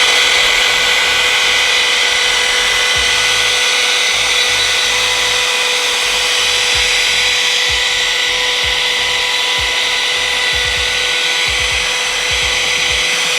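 Router running at steady speed as it cuts a hinge recess into the edge of a door through a clamped hinge jig: one continuous high whine over a steady hiss of cutting.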